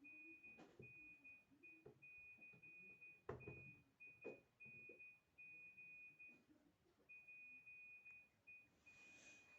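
Nokia 1616 mobile phone playing a ringtone through its small speaker: a single high beep tone in short, uneven pulses, with a brief break about two-thirds of the way through. A soft knock about a third of the way in.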